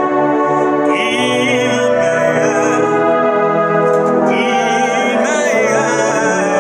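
Electronic keyboard holding sustained, organ-like chords while a man sings a worship song over it in wavering phrases with vibrato, one starting about a second in and another from about four seconds in.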